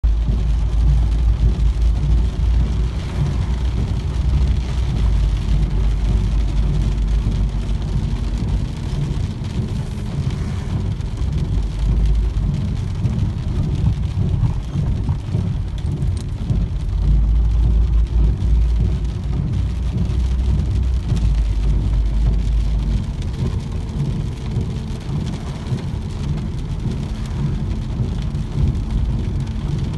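Heavy rain falling steadily, under a deep rumble that swells louder over the first several seconds and again in the middle.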